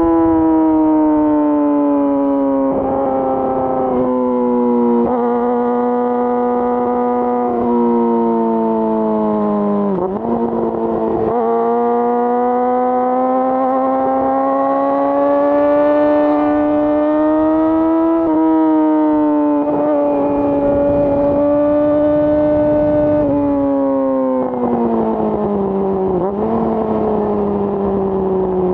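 2018 Yamaha R6's 599 cc inline-four running through an Akrapovic full exhaust while riding. The engine note sinks and climbs with the revs, with sudden pitch steps at gear changes: a sharp dip about ten seconds in, a slow climb through the middle, then falling revs with a few quick shifts near the end.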